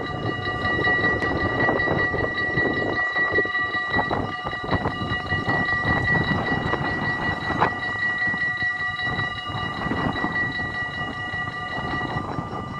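Two electric bells of a Dutch automatic level crossing ringing rapidly and without pause while the barriers lower, stopping near the end once the barriers are down. Wind rumbles on the microphone underneath.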